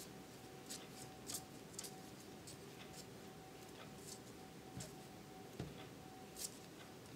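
Faint handling sounds of fingers pressing and smoothing soft clay inside a silicone cupcake holder: scattered light clicks and rubs, with two soft thumps about five seconds in, over a faint steady hum.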